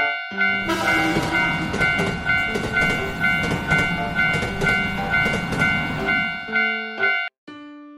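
Japanese railroad crossing bell ringing 'kan kan' in quick, evenly spaced strikes while a train rushes past from about a second in until near the end. The bell cuts off suddenly just before the end.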